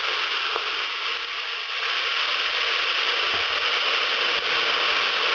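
Fried chicken feet sizzling in hot oil in a pot, with soy sauce and oyster sauce just added: a steady hiss, with a faint click and a soft thump.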